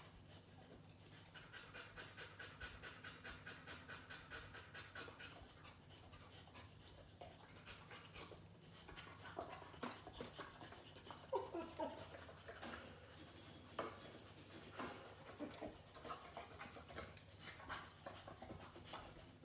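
Boxer dog panting, about three breaths a second, faint; later come a few short clicks and rustles as the dog shifts and gets up.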